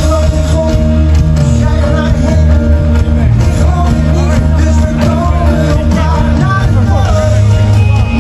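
Live band music with a singer over electric guitar and strong bass, heard from within the audience.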